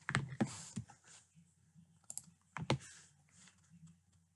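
Scattered clicks from a computer mouse and keyboard: a few quick ones near the start, then single clicks with gaps between.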